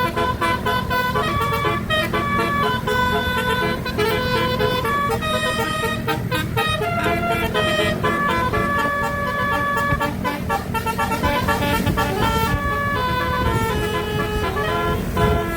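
Basuri (telolet) musical horn on a tour bus playing a melody: sustained horn notes that step up and down in pitch, over a steady low hum.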